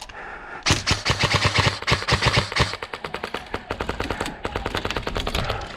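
Airsoft rifle firing long full-auto strings, a rapid, even chatter of shots. The first second or two is louder, then a slightly quieter stream of shots follows.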